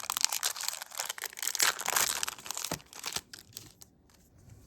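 Foil wrapper of a Pokémon card booster pack being torn open and crinkled, dense crackling that stops about three seconds in, followed by a few light ticks.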